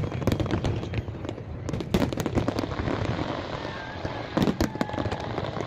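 Aerial fireworks bursting: a run of bangs and pops with a steady crackling in between. One loud bang comes about two seconds in and another cluster of bangs near four and a half seconds.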